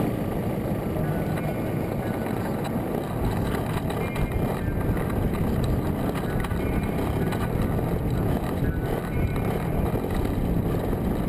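Engine of a large-scale RC aerobatic plane idling on the ground, heard from a camera mounted on the airframe: a steady, rough low running noise.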